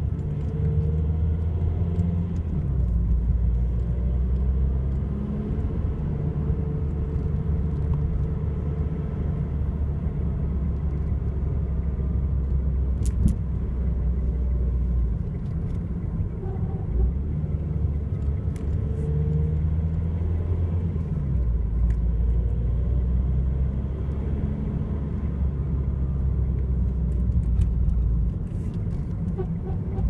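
Ford Mondeo TDCi diesel engine and drivetrain heard from inside the cabin while driving slowly, with a deep rumble that comes and goes in long stretches as the revs change. This is the noise on changing down gears that the owner suspects comes from a worn dual-mass flywheel or a clutch release bearing.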